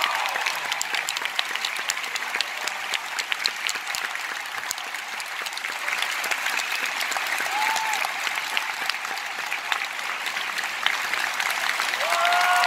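Large theatre audience applauding steadily: dense, even clapping from a full house greeting the cast's bows.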